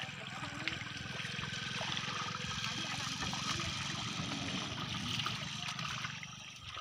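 Shallow muddy water sloshing and trickling steadily as several people grope through it with their hands for fish.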